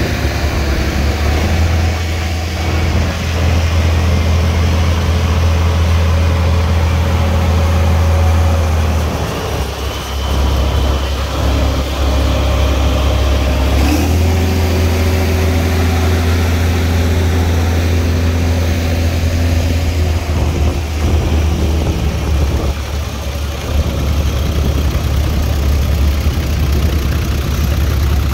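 Antique tractor engines running at low speed as tractors pass one after another, the engine note changing about a third of the way in and again near the middle.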